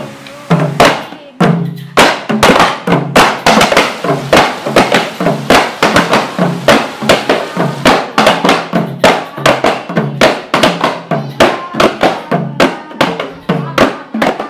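Percussion-driven music: quick, closely spaced hand-drum strikes over a repeating low tone, the strikes coming faster in the second half.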